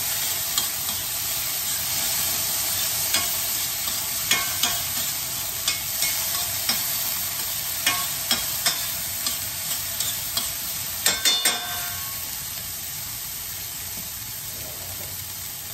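Chopped vegetables sizzling in olive oil in a stainless steel skillet while a utensil stirs them, scraping and clicking against the pan now and then. Three quick clicks come about eleven seconds in, then the stirring stops and only a steady, quieter sizzle remains.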